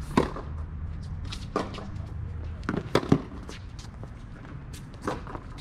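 Tennis ball struck by rackets and bouncing on a hard court during a backhand rally: sharp pops at irregular intervals, the loudest a quarter-second in and a close pair about three seconds in.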